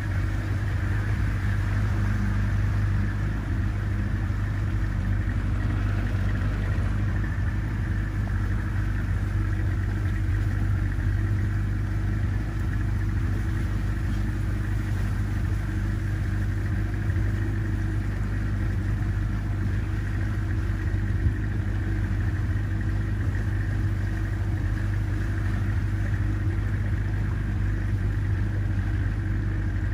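Boat motor running at a steady speed, a constant low hum with a steady hiss over it.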